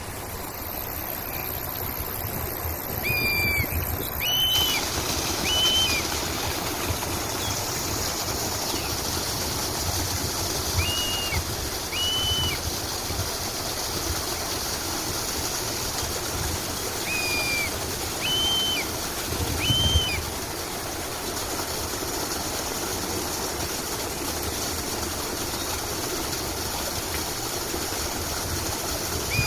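Steady rushing of a flowing stream, with a bird giving short, arched call notes in twos and threes every few seconds.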